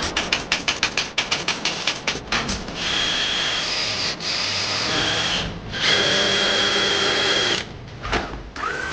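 Cordless drill-driver driving screws into pine boards: two long steady runs of motor whine, after a quick run of sharp clicks in the first two seconds.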